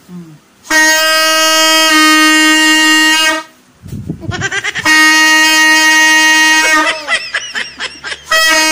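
Alto saxophone playing a slow melody in long held notes separated by short breaks, with a wavering, bending pitch for about a second near the end before another held note begins.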